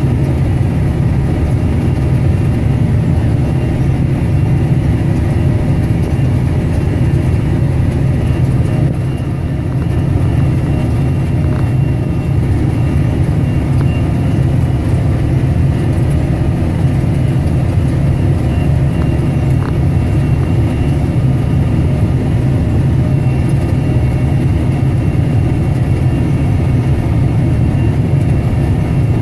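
Large diesel farm machinery engine running steadily under load, a continuous low-pitched drone with faint steady higher tones, dipping briefly in loudness about nine seconds in.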